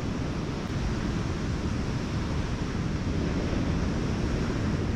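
Ocean surf washing on a beach, mixed with wind buffeting the microphone: a steady rushing noise with a heavy low rumble.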